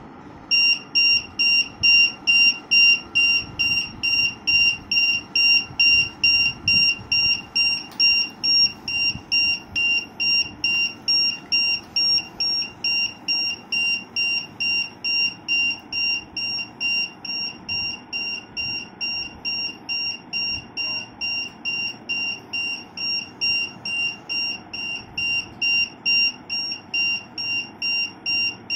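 Low-battery warning buzzer on a modified JJRC Q60 RC truck, beeping steadily at about two high beeps a second from about half a second in: the battery is running flat.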